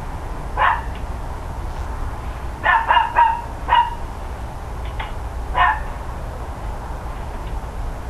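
A dog barking about seven times at uneven intervals: a single bark, then a quick run of four about two seconds later, then two more, the first of those fainter. Underneath is a steady low rumble.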